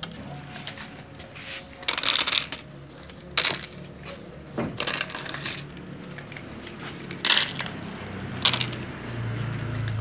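Dry cat kibble rattling and clattering as it is handled and tipped into bowls, in several short bursts.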